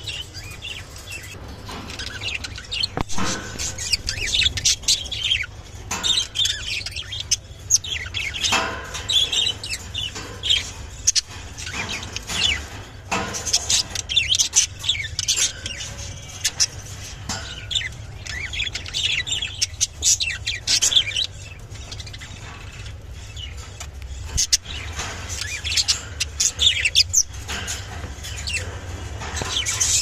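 Lutino budgerigars chirping and chattering: rapid bursts of short, high chirps and warbles, broken by brief pauses.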